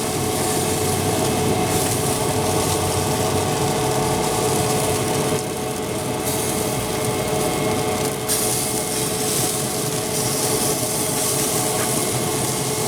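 A steady machine hum with several held tones runs under a rough rubbing, scraping noise, consistent with a brush working barbecue sauce over chicken skin on a pellet grill. The scraping eases for a few seconds around the middle.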